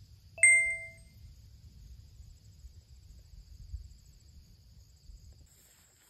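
A single bright ding, like a small bell or chime struck once, about half a second in, ringing out for about half a second. Faint steady high-pitched tones run underneath.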